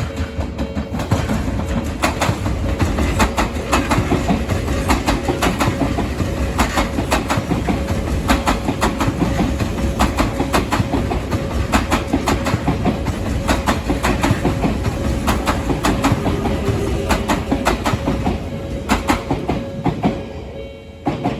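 Train passing over a level crossing for about twenty seconds, its wheels clattering over the rail joints in a dense run of clicks, dying away near the end. The crossing's warning bell rings steadily underneath.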